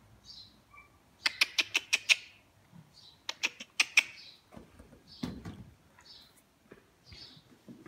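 Small birds chirping: soft single chirps every second or so, and twice a loud, rapid run of sharp chirps, about eight in under a second. A rougher, lower rustle comes about five seconds in.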